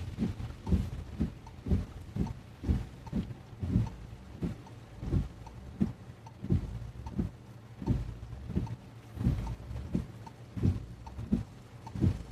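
Windshield wipers going back and forth in heavy rain, heard from inside the car: a low thump about one and a half times a second over a steady rumble.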